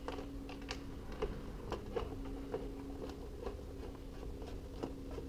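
Small irregular clicks of a screwdriver turning out the mounting screws of a garage door opener's logic board, over a faint steady low hum.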